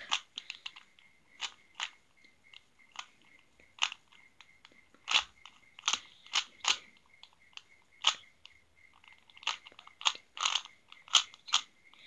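Plastic 3x3 Rubik's cube being turned by hand: irregular sharp clicks and clacks as the layers snap round, some coming in quick runs of several turns.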